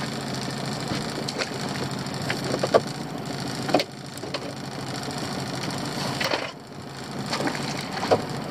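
Lobster pots knocking and clattering as they are handled and stacked on a boat's gunwale, a handful of sharp irregular knocks, over the steady hum of the boat's engine idling.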